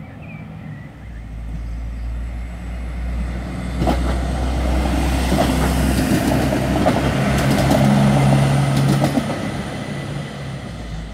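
Pesa diesel multiple unit passing close by. Its diesel engine's drone builds to a peak about eight seconds in and then fades as it moves away. Sharp clicks from the wheels running over the track come as it goes past.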